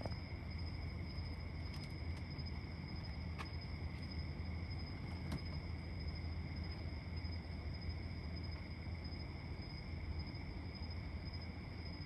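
Night insect chorus, a steady high trill at two pitches, over a low steady hum, with a couple of faint clicks a few seconds in.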